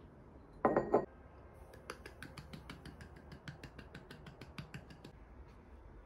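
Ceramic cup clunking down on its saucer, then a quick run of light clinks, about six a second, for around three seconds.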